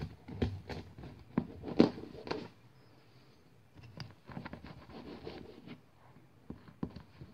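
A knife sawing through a loaf of baked semolina bread: a run of uneven scraping strokes on the crust, loudest about two seconds in. It is followed by softer scratching and crumbly rustling as the loaf is handled by hand.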